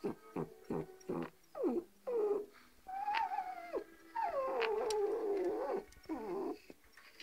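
Bichon frise dog whining and grumbling: a quick run of short whimpers that drop in pitch, then longer wavering whines in the second half.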